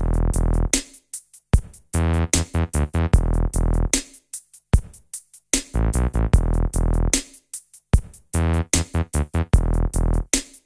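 Electronic background music with a drum-machine beat and synthesizer, chopped into short stop-start pieces.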